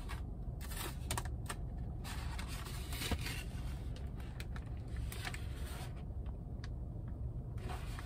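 Steady low rumble of a car heard from inside the cabin, with scattered clicks and rustles of a cardboard bakery box being opened and handled.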